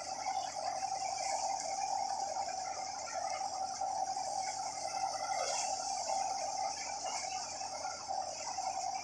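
Tractor-powered paddy thresher running steadily under load as rice straw is threshed, a constant mechanical rattle and hum.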